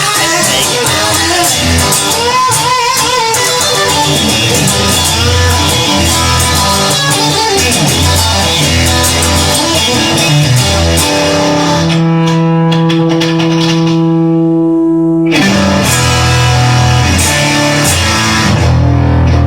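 Rock music with electric guitar and bass, an instrumental stretch with no singing. About twelve seconds in, the band drops to a single sustained note with ringing overtones for about three seconds, then the full band comes back.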